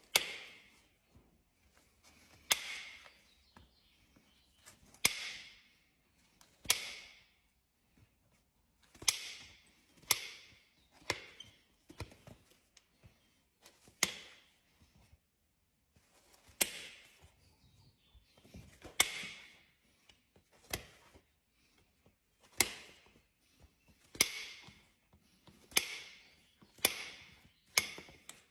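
Farrier's tools cutting and trimming a horse's hoof: a series of sharp strokes, each a crisp snap trailing off in a short scrape, about one every one to two seconds.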